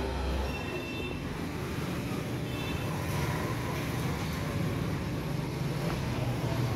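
Steady low rumble of road traffic, with a few faint, brief high-pitched tones.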